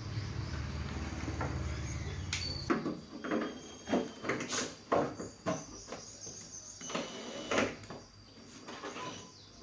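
A steady low hum that cuts off suddenly under three seconds in, followed by a string of irregular clicks and knocks like small hard objects being handled.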